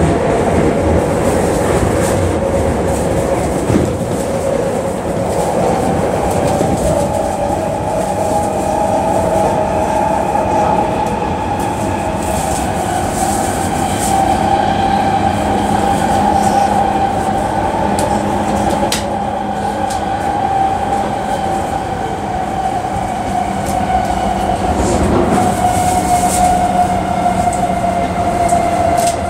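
Tokyu 3000 series electric train running, heard from inside the passenger car: a steady rumble from the wheels on the rails, with a whine that drops slightly in pitch near the end.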